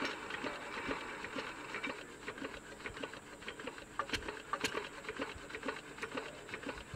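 Faint, rapid mechanical ticking and clatter from the engine-driven hoist of a well-digging crane, running while the loaded basket hangs on its chains. Two sharper clicks come about four seconds in.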